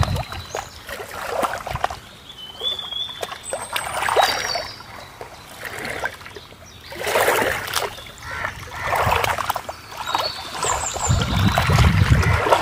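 Small river waves lapping and splashing against the rocks at the water's edge, the water surging in every couple of seconds.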